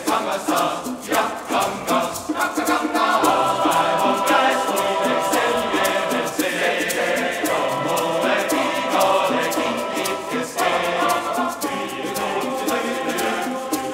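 Men's choir singing an upbeat samba song in full voice, with hand percussion tapping a quick, steady beat underneath.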